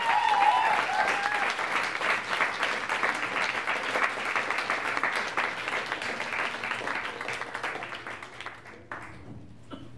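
Audience applauding, with a few cheers from voices in the first second or so. The clapping gradually fades out near the end.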